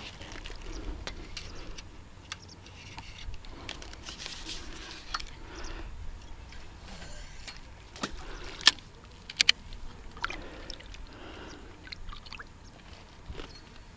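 Scattered sharp clicks and knocks of fishing tackle being handled at a feeder angler's seat box, the loudest a few clicks about two thirds of the way in, over a low rumble of wind on the microphone.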